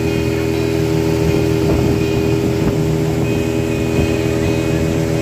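Motorboat engine running steadily at cruising speed, with the hull moving through the water.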